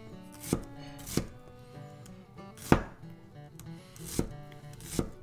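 Large kitchen knife dicing a red onion on a wooden cutting board: five separate, unevenly spaced knife strikes on the board, the loudest about halfway through.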